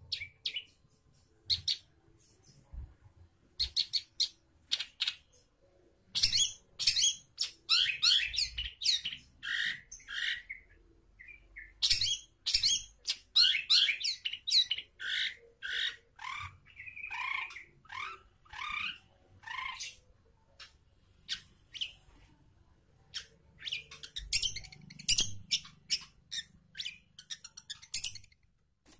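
Long-tailed shrike (cendet) singing: bouts of fast, scratchy chattering and harsh squawks, with a few downward-slurred notes in the middle and short pauses between bouts.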